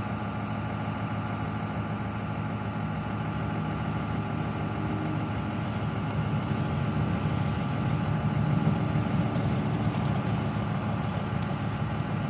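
An engine running steadily at a constant speed, getting a little louder in the second half.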